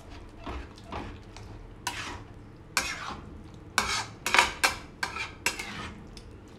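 A metal spatula scraping and stirring in a kadhai, working through a thick mashed vegetable mixture as it fries. Short strokes recur throughout, quickening and growing loudest about four to five and a half seconds in.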